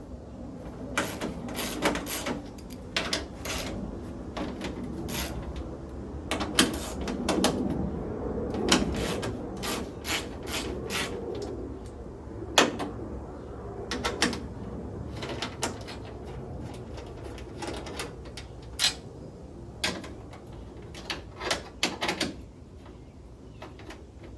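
Irregular clicks and knocks of hand tools and metal parts being handled while the radiator cover support is unbolted and taken off the car, with the knocks growing sparser near the end.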